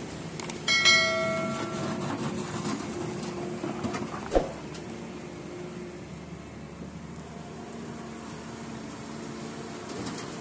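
Doosan DX wheeled excavator's diesel engine running steadily under hydraulic work. About a second in comes a high ringing squeal lasting about a second, and a single sharp knock about four seconds in.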